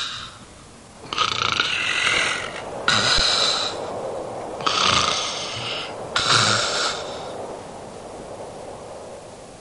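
A man snoring in his sleep: four drawn-out, hissing snores one after another, ending about seven seconds in.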